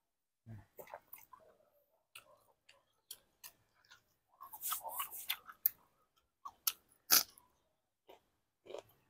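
A person chewing food with the mouth open: irregular wet smacks and small crunches, thickest about halfway through, with one sharp click a couple of seconds later.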